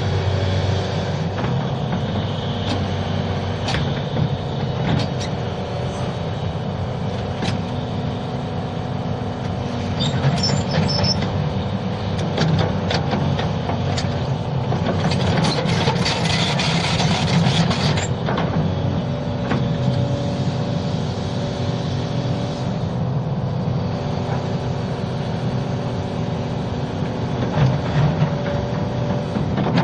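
Diesel engine of a tracked hydraulic excavator running steadily under load as it digs a trench, with repeated clanks and scrapes of the bucket in rocky soil. A harsher rushing noise rises for a few seconds past the middle.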